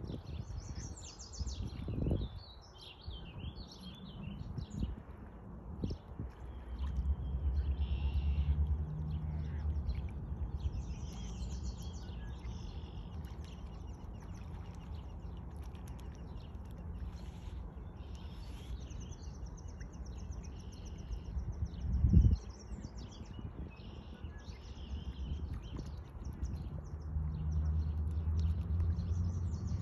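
Small birds chirping and trilling in short high phrases throughout, over a low steady rumble that swells about a quarter of the way in and again near the end, with a couple of dull bumps.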